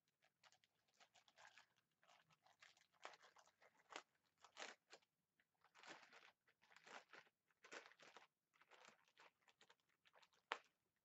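Faint, irregular crinkling and rustling of a clear plastic packaging bag being handled and dug through, with one sharper click near the end.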